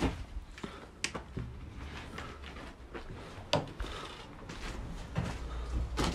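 Footsteps and handling noises in a small derelict room: a few sharp knocks and clicks, the clearest right at the start, about a second in and about three and a half seconds in, over faint shuffling and small ticks.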